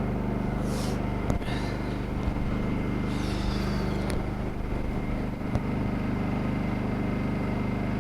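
Honda portable generator's engine running steadily while powering a light and plugged-in tools, with a couple of short clicks or knocks about a second in and again near the middle.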